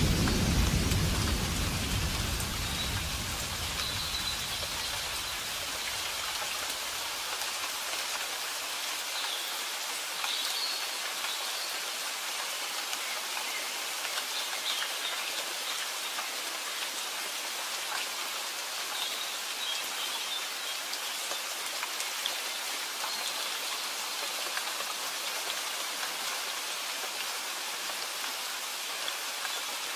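Steady rain falling, with the low rumble of a thunder roll dying away over the first few seconds.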